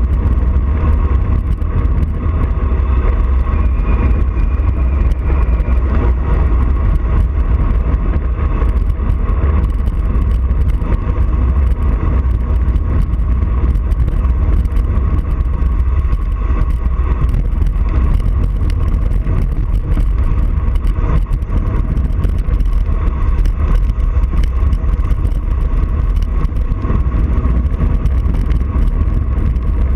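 Steady, loud wind rumble buffeting the microphone of a camera on a bicycle descending a mountain road at speed.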